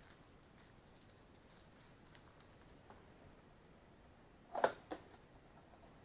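Light clicks and taps of a trading-card box and its plastic wrapping being handled on a tabletop, with two sharp knocks in quick succession near the end.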